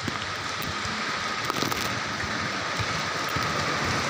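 Heavy rain falling in a steady hiss during a windy downpour, with irregular low buffeting from the wind.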